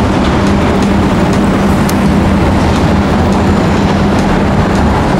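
Loud, steady street traffic noise with a constant low engine hum, as of a large vehicle running nearby.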